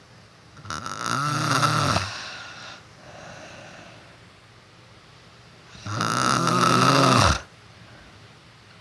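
A sleeping man snoring loudly: two long snores about five seconds apart, each lasting about a second and a half, with a softer breath out after the first.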